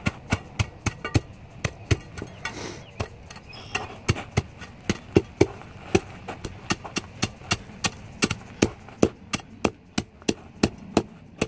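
Hand tamp with a 10-by-10-inch plate striking the ground again and again to compact the base for brick steps. The thuds come in a steady rhythm of about two to three a second and get lighter near the end.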